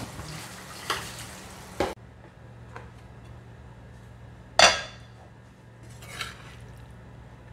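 Metal spoon scraping and knocking in a frying pan of cooked ground beef, with one loud clank about four and a half seconds in and a lighter one a couple of seconds later. For the first two seconds a faint sizzle from the still-hot pan is heard, which cuts off abruptly.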